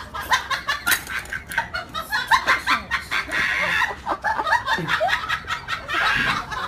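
Pug eating noodles: rapid wet smacking and chewing clicks, mixed with short grunting sounds.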